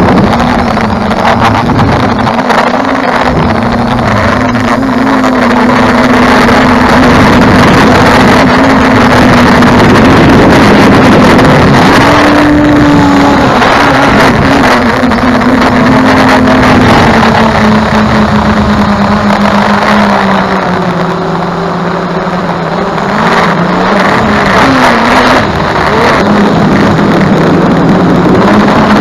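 Multirotor drone's brushless motors (2212, 920KV) and 9-inch propellers, heard from the drone's own camera: a loud, steady hum whose pitch shifts with throttle, dropping lower about two-thirds of the way through and rising again near the end.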